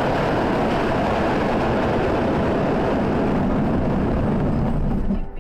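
Loud continuous scraping and rumbling of a crashed vehicle sliding along the asphalt on its side. It stops about five seconds in.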